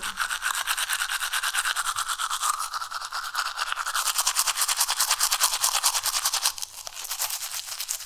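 Teeth being brushed with a toothbrush: fast, even back-and-forth scrubbing strokes, with a brief dip about six and a half seconds in.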